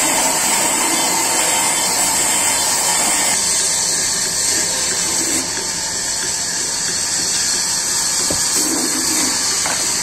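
Sawmill band saw running and ripping wooden boards into planks: a loud, steady hiss with a high edge. It thins a little after about three seconds, as the cut eases.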